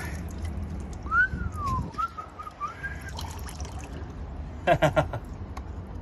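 A person whistles: one rising-then-falling whistle about a second in, then a wavering one, followed near the end by a short chuckle. Underneath, water trickles faintly from a mass of plant roots pulled out of a rainwater tank's inlet strainer.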